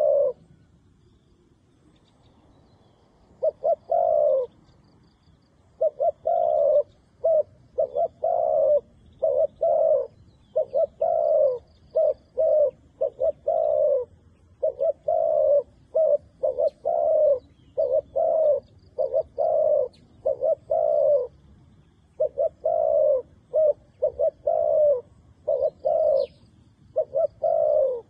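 Dove cooing: short, low, repeated coo notes in quick groups, close and loud. After a pause of about three seconds near the start they carry on almost without a break, with faint high chirps of another bird in the background.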